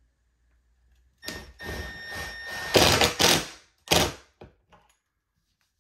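Cordless drill/driver driving a pocket-hole screw through a bracket into wood, with a steady motor whine, loudest as the screw pulls tight, then one short final burst to seat it about four seconds in.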